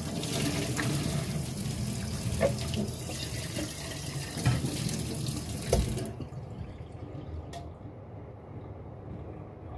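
Kitchen tap running while kettles are rinsed under it, with a few sharp knocks against the sink. The water shuts off about six seconds in.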